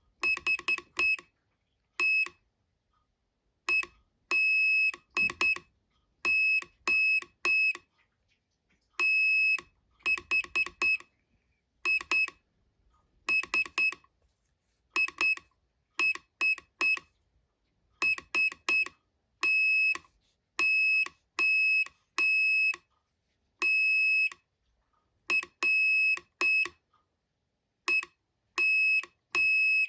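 Morse code sent as a single high-pitched beep tone, keyed on and off in short dots and longer dashes, with longer pauses between letters and words.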